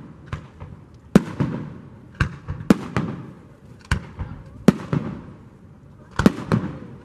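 Aerial firework shells bursting in quick succession: about a dozen sharp bangs, each trailing off in an echo.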